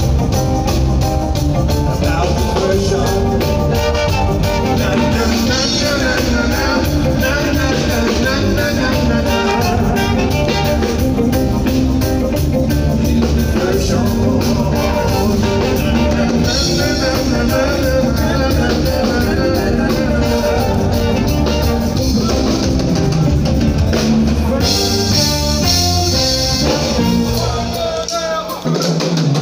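Live band playing, with drum kit, electric guitar and bass under singing. The drums and bass drop out for a moment near the end.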